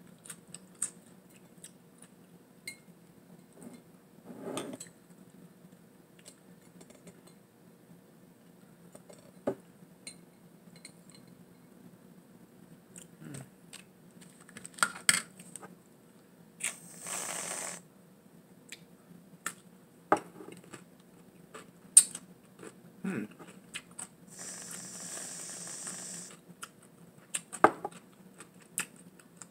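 Scattered clicks and taps of a plastic fork against a glass pickle jar and a foil-covered tray, with two hissing sprays from a whipped cream aerosol can, one of about a second and a longer one of about two seconds later on.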